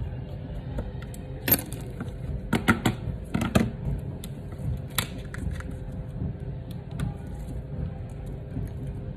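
Small metal parts and hand tools clicking and tapping against an iPhone XR's frame and the workbench as the phone is taken apart. The clicks are scattered, with the loudest in a cluster about two to four seconds in, over a steady low hum.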